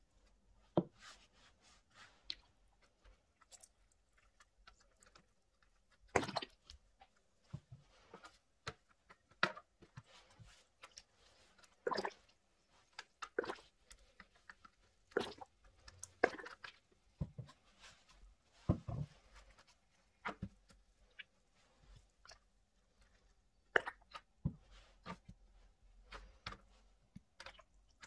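Liquid dye squirted from a plastic squeeze bottle onto blocks of gym chalk: scattered short, wet squishes and squirts at irregular intervals, a few louder than the rest.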